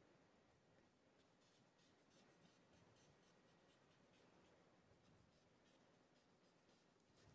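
Faint scratching of white chalk on a black drawing board in quick, short, repeated strokes, several a second.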